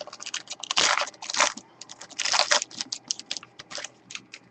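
A trading-card pack wrapper being torn open and crinkled, a quick irregular run of crackling rips and rustles that thins out near the end.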